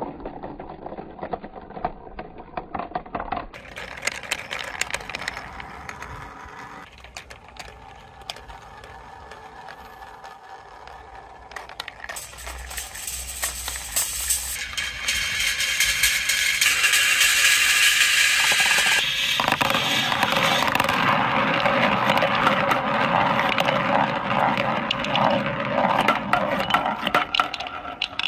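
Balls rolling and rattling along a plastic marble-run track of wave slopes, curves and a clear tube, with light clicks and knocks. About halfway through the rolling swells to a loud, steady rumble with a busy clatter, and it stays loud to the end.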